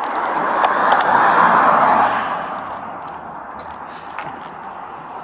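A vehicle passing close by on the road: a rush of road noise that swells over the first two seconds and fades away by about three seconds in, with a few light clicks.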